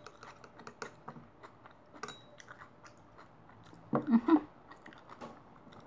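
Close-up chewing of crisp raw salad vegetables (lettuce and cucumber), with many small crunchy clicks. A louder bite and crunch comes about four seconds in.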